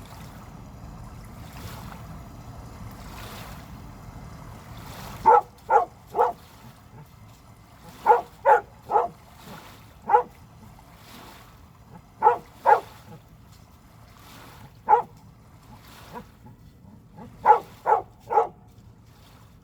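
A dog barking in short runs of one to three sharp barks, with pauses of a second or two between runs. A steady low rush is heard before the barking starts.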